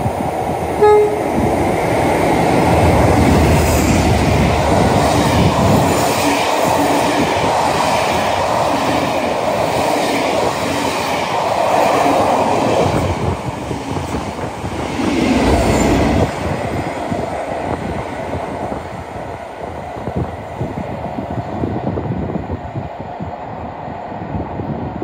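A train running past close by, with a brief horn toot about a second in. The wheels on the rails make a loud, steady rumble with a run of regular clicks, easing off in the last few seconds.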